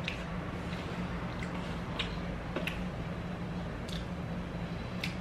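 A fork tapping and scraping on a plate while someone chews a mouthful of breakfast food: about six short clicks over a steady low hum.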